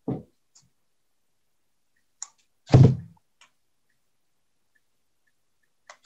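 Craft supplies handled on a table: a soft thud at the start, a light click about two seconds in, a louder thud just before three seconds, and a faint click near the end.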